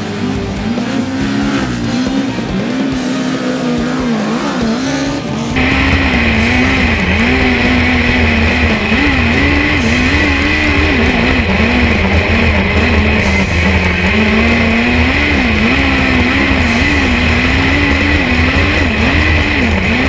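Speedway race car engine running hard on a dirt oval, its pitch rising and falling as the throttle comes on and off. About six seconds in it jumps louder and closer, heard from onboard with a steady rush and rumble.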